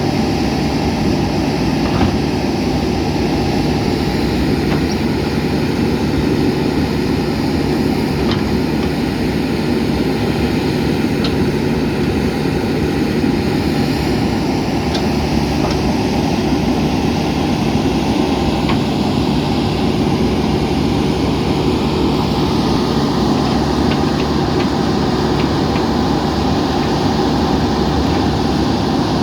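JCB 3DX backhoe loader's diesel engine running steadily, with a few light clicks scattered through it.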